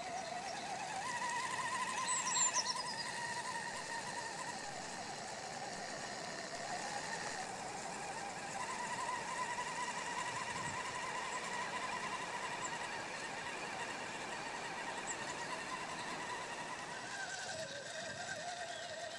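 Scale RC crawler truck's electric motor and gear drivetrain whining steadily as it drives, the pitch rising about a second in, dropping around five seconds, rising again around eight seconds and falling near the end.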